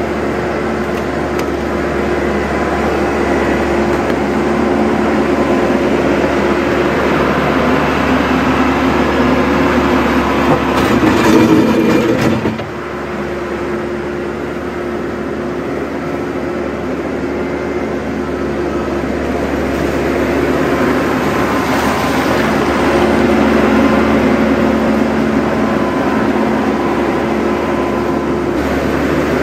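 TYM T574 tractor's diesel engine running steadily under load while its front-loader bucket pushes mud through shallow, rushing creek water. The engine sound swells a little before the halfway point, then drops off suddenly.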